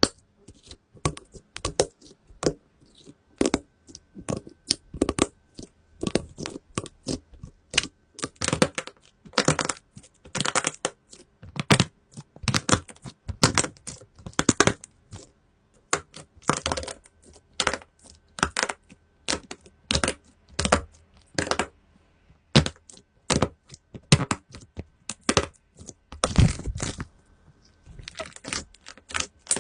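Slime being squeezed and poked by hand, making a dense run of irregular sharp pops and crackles as air pockets burst, with short pauses between bunches.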